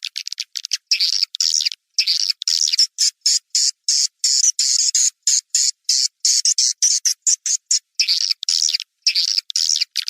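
Edible-nest swiftlets chattering: quick runs of high, buzzy twittering pulses broken by short gaps, with longer trills in the middle. It is a swiftlet call recording of the kind played from swiftlet houses to lure the birds in to roost and nest.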